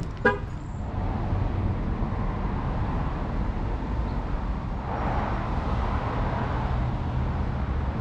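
A single short horn chirp from a Chevrolet Equinox, set off from its key fob, about a quarter second in: the lock-confirmation chirp. After it comes a steady low outdoor rumble of wind and traffic.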